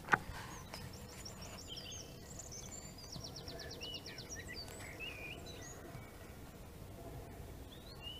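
Wild songbirds singing and chirping, with a fast trill about three seconds in, over steady outdoor background noise. A sharp click right at the start.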